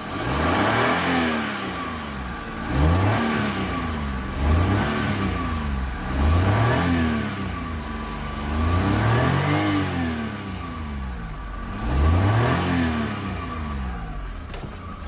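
Car engine running and being revved six times in a row by pumping the accelerator pedal, each rev rising and falling back.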